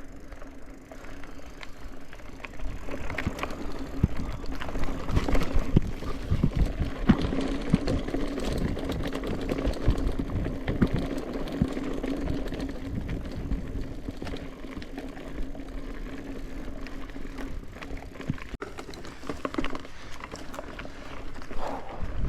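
Mountain bike ridden over a rough dirt trail: tyres rolling over ground, with rapid knocks and rattles from the bike over bumps, busiest in the first half, over a steady buzz.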